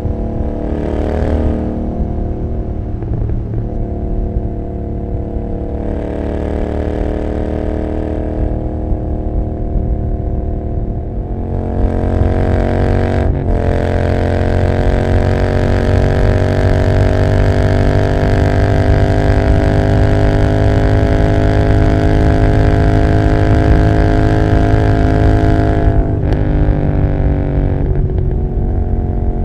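Royal Enfield Continental GT 650's 648 cc parallel-twin running through open Emgo cafe mufflers with no dB killer, heard from the rider's seat, first inside a road tunnel. About 12 seconds in it gets louder and its pitch climbs steadily as the bike accelerates, with brief breaks in the note, likely gear changes, shortly after and again near the end.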